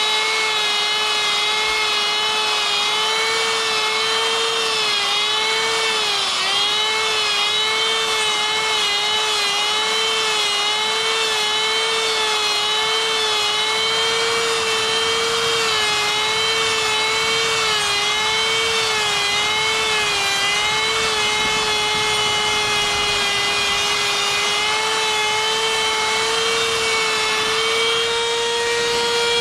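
Handheld electric rotary tool with a sphere burr grinding into wood, a steady high-speed whine. The pitch dips briefly over and over as the burr bites into the wood.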